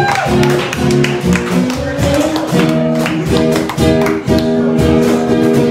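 Live acoustic band music: a woman singing over a strummed acoustic guitar, with a cajón keeping a steady beat.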